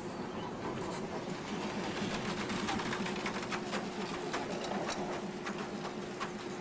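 Vintage electric streetcar passing close on its rails: a steady hum with a run of rapid clicks and rattles from the wheels and running gear on the track between about two and six seconds in.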